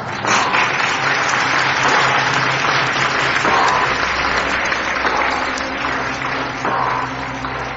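A roomful of seated guests applauding, steady clapping throughout.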